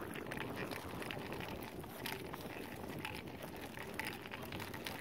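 Wind rumbling on a handheld camera's microphone outdoors, with a few faint footsteps.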